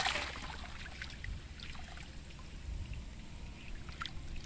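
Faint trickling water over a low, steady rumble, with a few small ticks.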